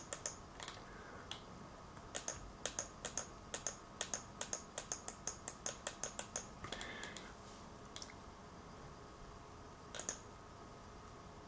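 Computer mouse button clicking faintly in a quick run of about four clicks a second for several seconds, with a lone click near the end.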